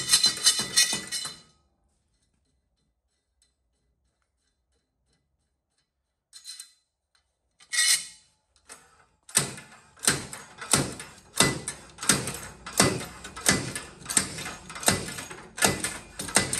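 Slide hammer knocking metal on metal, pulling the bearings out of a Porsche 928 torque tube. Quick blows with a ringing clink stop about a second and a half in; after a few silent seconds and a few stray knocks, steady blows come about twice a second.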